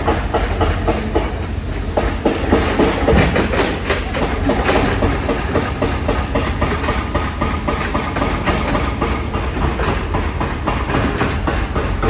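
Construction-site noise: machinery running with a dense, continuous clatter of knocks and bangs over a steady low rumble.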